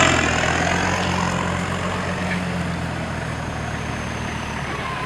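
Off-road 4x4 vehicle's engine running steadily at low revs, slowly easing in level.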